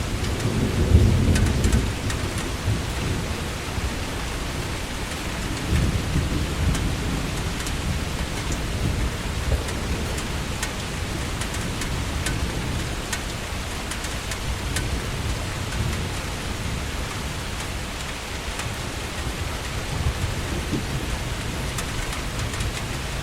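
Heavy rain falling steadily in a tropical storm, with scattered drops ticking on a hard surface. Low rumbles swell up about a second in, again around six seconds and near twenty seconds.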